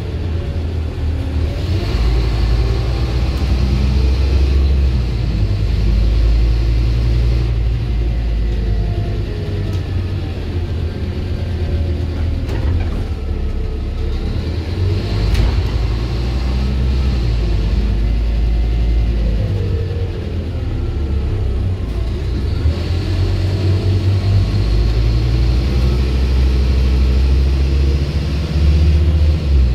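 Scania single-deck bus engine heard from inside the passenger saloon while the bus is driven, a steady low rumble that swells and eases several times as the engine note rises and drops back.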